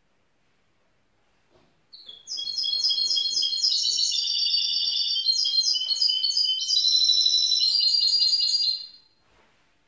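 Young goldfinch × canary mule singing a rapid string of short high notes and trills, starting about two seconds in and stopping shortly before the end.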